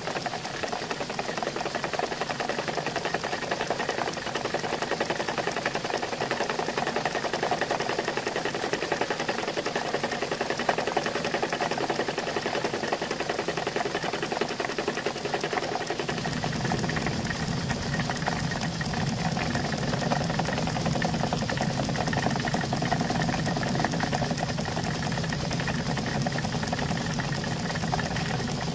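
A 14 mm end mill taking a light side cut in a metal block, with the machine running steadily. A deeper hum comes in a little past halfway.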